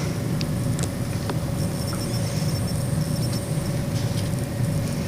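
Steady low machine hum with a constant whine running through it, and a few faint, scattered clicks.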